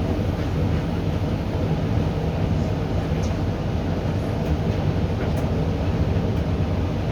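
Hoover 8 kg dryer running on a cotton drying programme: a steady low hum of the motor and tumbling drum, with a few faint ticks.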